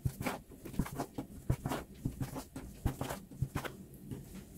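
A plastic dough scraper cutting through a log of soft yeast dough and knocking on the countertop with each cut: a series of irregular soft knocks.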